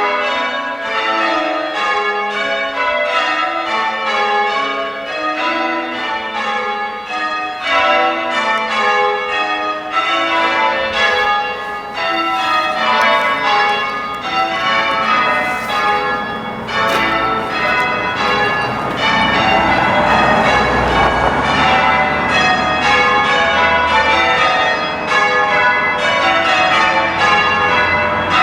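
Six church bells rung in change ringing, heard from outside the tower: a continuous, evenly paced run of overlapping bell strikes. A rushing noise joins in about two-thirds of the way through.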